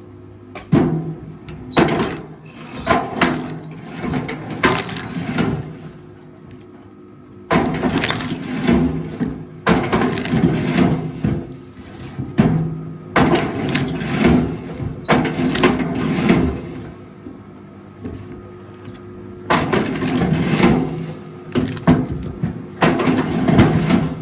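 Rail log splitter working through firewood: repeated bouts of wood creaking and cracking as logs are forced apart, with sharp knocks and a low steady hum under them.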